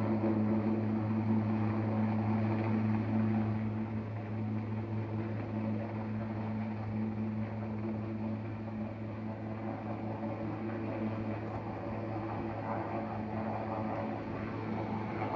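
A steady low engine drone with a constant hum, easing off a little about four seconds in.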